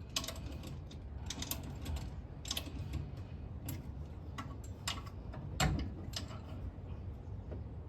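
Irregular metallic clicks and clinks of hand tools working on an alternator's mounting bolts, with one louder knock about five and a half seconds in.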